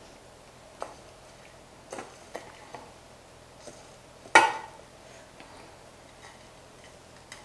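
A wooden spatula knocking and scraping in a stainless steel pan of roasted gram dal: a few light ticks, then one louder knock a little past four seconds in.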